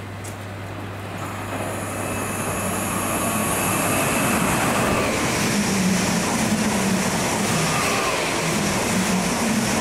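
Greater Anglia Class 745 electric multiple unit (Stadler FLIRT) running through the station at speed: a rush of wheels on rail that swells over the first few seconds as it approaches, then holds loud and steady as the coaches pass, with a thin high whine above it.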